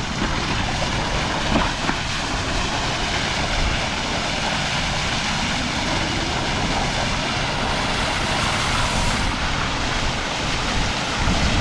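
Fire hydrant flowing open, a steady rush of gushing water as it is flushed to clear dirt out after a stem replacement.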